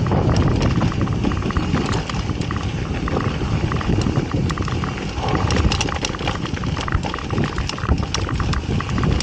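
Mountain bike rolling fast down a dry dirt trail: a steady rumble of tyres over dirt and loose stones, with many sharp rattles and clicks from the bike.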